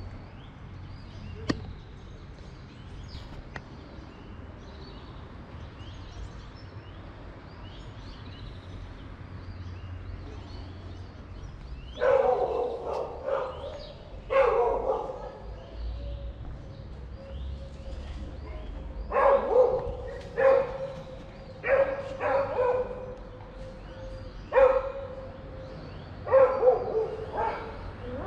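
A dog barking in repeated bursts of a few barks each, starting about twelve seconds in. Before that, faint bird chirps over a low background rumble.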